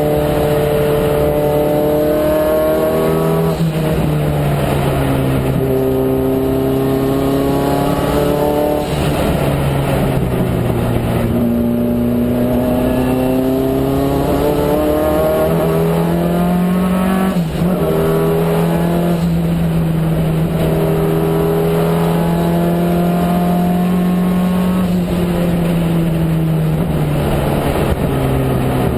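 Peugeot 205 GTi's turbocharged engine, running 7 psi boost, heard from inside the cabin while driven hard on track. Its note climbs under acceleration and drops back sharply several times, as at gear changes and braking.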